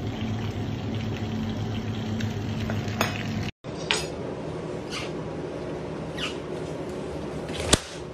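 Kitchen room tone with a steady low hum and faint clicks, which cuts off abruptly. Then a few sharp knocks and clicks as a large whole fish and a knife are handled on a cutting counter, the loudest knock near the end.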